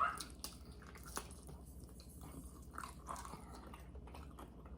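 A person chewing food, with a few soft mouth clicks, the first near the start.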